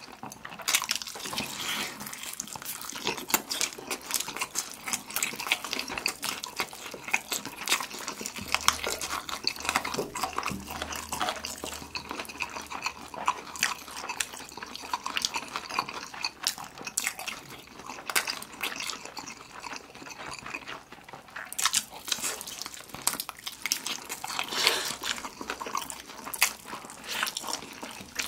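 Close-miked eating sounds of people biting into and chewing sauce-coated fried chicken drumsticks: wet smacking and chewing with frequent sharp clicks and snaps.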